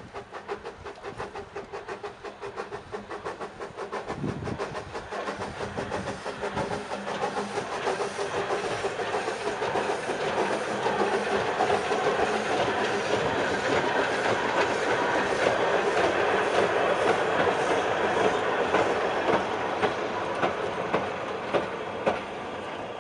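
Small narrow-gauge steam tank locomotive passing with a short train of wagons: quick regular exhaust beats and wheels clattering over the rail joints, growing louder as it crosses and easing off near the end, with a few sharp wheel clicks in the last seconds.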